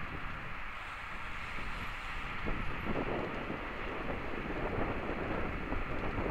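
Wind buffeting the microphone of a bike-mounted camera at speed, over the steady rumble of mountain-bike tyres rolling on asphalt in a pack of riders. The buffeting grows busier about two and a half seconds in.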